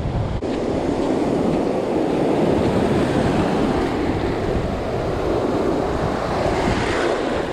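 Shallow surf washing and churning around the hands in the water, with wind buffeting the microphone.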